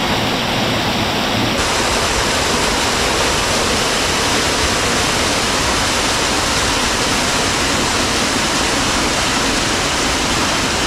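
River water rushing: a loud, steady rush of flowing water.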